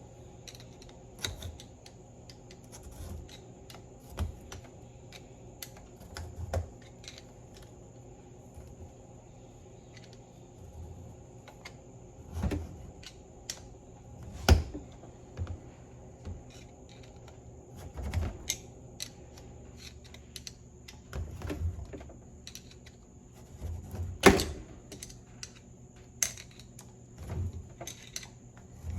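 Irregular metal clicks and knocks of hand tools on a steel steering box as its locking ring is worked tight, with two louder knocks, one about midway and one later on.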